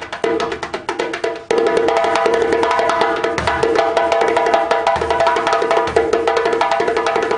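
Solo djembe played with bare hands: a fast run of ringing tones and sharp slaps. About a second and a half in it turns into a louder, nearly continuous flurry of strokes.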